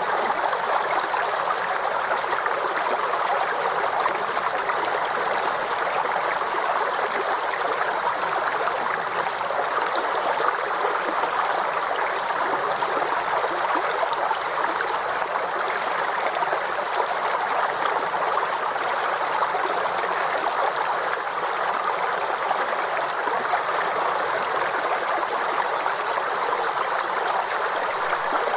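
Forest stream flowing steadily over rocks, a constant rushing and burbling of water.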